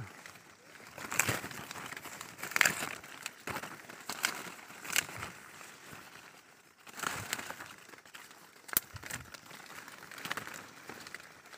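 Leaves and branches of robusta coffee plants rustling and crackling irregularly as they are handled during pruning, with a few sharp clicks.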